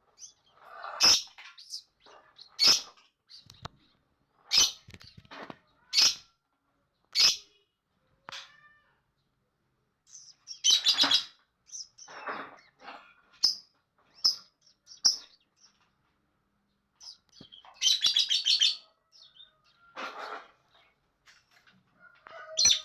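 Pet lovebird chattering: a string of short, sharp, high-pitched calls with brief pauses between them, and a quick rattling call about three quarters of the way through.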